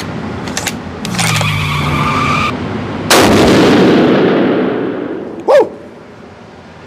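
A single shot from a Seekins Havak PH2 rifle in 300 PRC firing 225-grain Hornady Match ammunition: one very loud report about three seconds in, with an echo that takes about two seconds to die away in the indoor range. A short whirring hum comes a second or two before the shot, and a shouted "Woo!" follows near the end.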